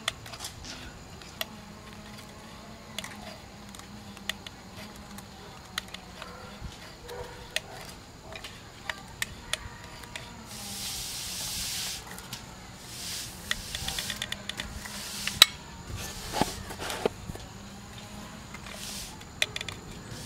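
A caulking gun squeezes runny asphalt crack filler out of its cartridge into a driveway crack. The gun clicks and knocks at scattered moments, there is a hissing spurt about halfway through, and a quick run of clicks follows soon after.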